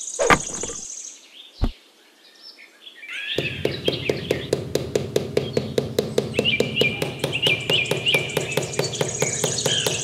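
Two short knocks, one just after the start and one under two seconds in. From about three seconds in, birds chirp over background music with a quick, steady beat.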